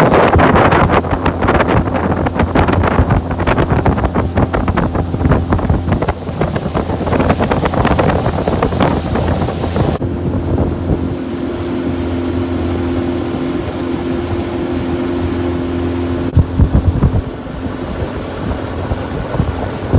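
Small boat's outboard motor running steadily under way, a constant low hum, with wind buffeting the microphone, heavy in the first half.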